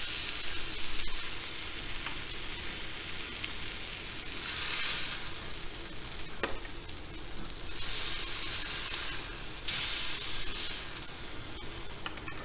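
Ribeye steaks and their fat and juices sizzling on a hot soapstone searing stone as the steaks are lifted off with metal tongs. The sizzle swells louder three times, and there is a single sharp click about six and a half seconds in.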